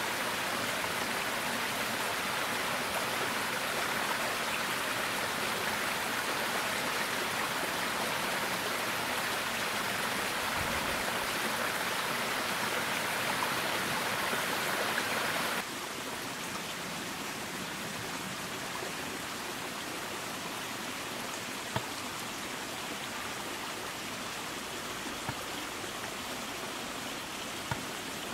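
Small rocky stream running over stones: a steady rush of water. About halfway through, the sound drops suddenly to a quieter steady hiss, with a few faint clicks.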